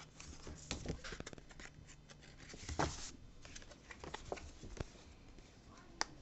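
Paper and cardboard packaging being handled: irregular rustling and crinkling with light taps, a louder rustle about three seconds in and a sharp click near the end.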